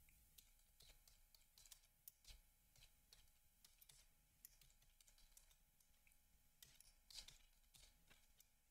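Faint computer keyboard typing: scattered, irregular key clicks over near silence.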